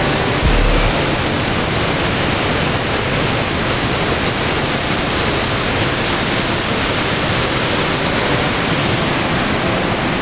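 Niagara Falls' water plunging and churning, a loud, steady rushing roar. A brief low thump sounds on the microphone in the first second.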